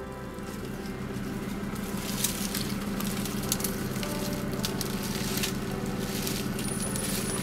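Dry twigs and branches crackling and snapping, with rustling, as an elephant browses in the bush; the sharpest snaps come about two and three and a half seconds in. Soft music runs underneath.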